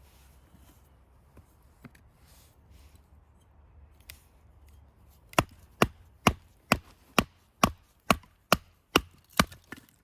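A blade chopping on wood: about ten sharp, evenly spaced strikes, a little over two a second, starting about halfway through, after a couple of faint knocks.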